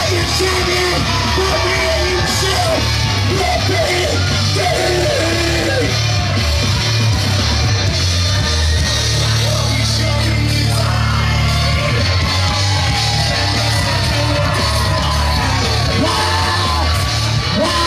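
Wrestler's entrance music played loud over a hall's sound system, with a heavy, steady bass beat and vocals, while the crowd yells over it.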